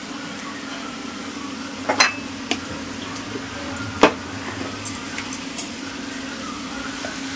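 Faint sizzling of a tempering in a small iron kadai over a steady low hum, with a few sharp metallic clicks from steel spice containers being handled, the loudest about two and four seconds in.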